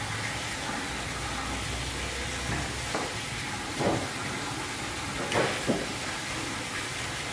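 Broom sweeping floodwater across a wet floor: a few short swishes and splashes over a steady hiss.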